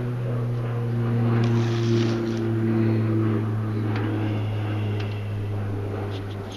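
A steady low mechanical hum, like a motor running, with a few steady tones above it. It swells in the middle and eases off near the end, and a couple of faint clicks sound over it.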